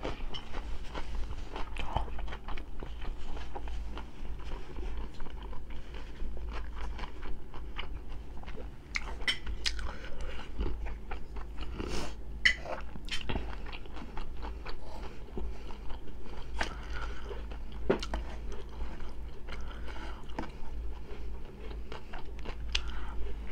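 Close-miked chewing of food, crunching bites and mouth sounds, with scattered sharp clicks and taps.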